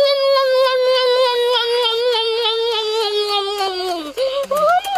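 A long, high wailing voice held for about four seconds, wavering slightly and slowly sinking before it breaks off, then a second shorter wail that rises and falls away.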